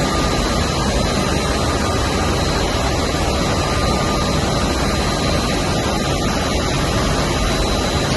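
Brückner stenter running in a textile mill: a steady, loud mechanical noise with faint high whines over it.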